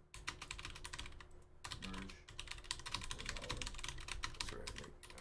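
Typing on a computer keyboard: quick runs of keystroke clicks, several a second, with a short pause about a second and a half in.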